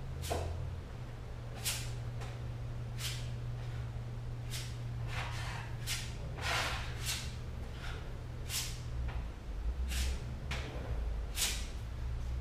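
Plastic body-filler spreader scraping filler across a Land Rover bonnet in short strokes, about one a second, over a steady low hum.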